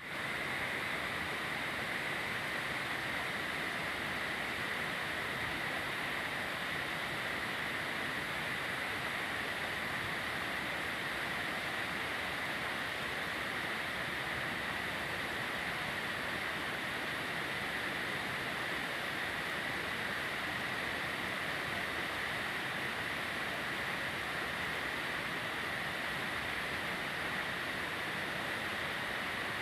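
Rajanawa Falls waterfall: a steady, unbroken rush of falling water.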